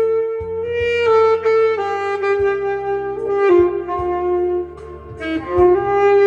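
Solo saxophone playing a slow gospel melody in long held notes, over an accompaniment with a steady bass line.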